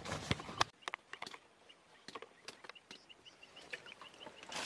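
Clicks and knocks from handling at first, then a quick run of about a dozen short, high chirps, several a second, from a small animal calling. A rustle comes in near the end.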